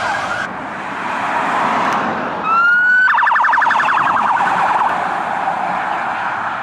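A siren over a steady hiss: a tone rises about two and a half seconds in, then turns into a fast warble that fades away.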